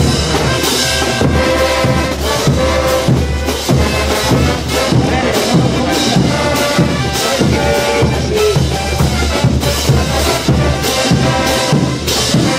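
Bolivian brass band playing morenada-style dance music: a brass melody over bass drum and cymbals keeping a steady beat.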